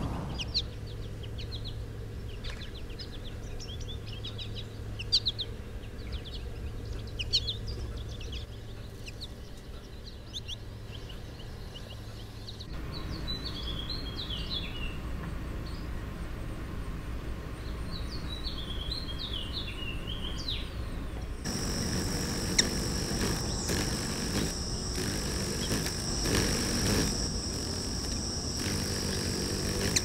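Birdsong in three segments. First, short high chirps from a male northern cardinal. Then a Baltimore oriole's whistled song of curving phrases, from about 13 seconds. From about 21 seconds, a steady high insect trill.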